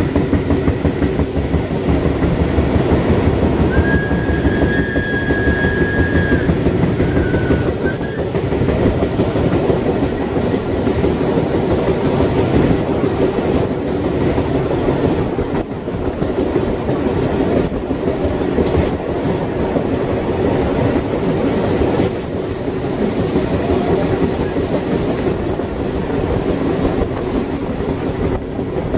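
Passenger train running along the track with a steady rumble of wheels on rails. A thin squeal of wheels comes in about four seconds in and lasts a couple of seconds, and a longer, higher squeal starts about three-quarters of the way through and runs nearly to the end.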